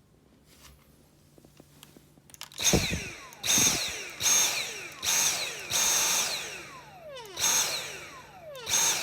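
Dyson cordless vacuum cleaner's motor switched on in about seven short bursts with its trigger, starting a few seconds in. Each burst has a high whine that falls in pitch as the motor spins down after release.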